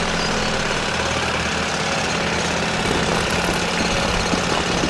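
Truck engine running steadily at idle, a low even hum.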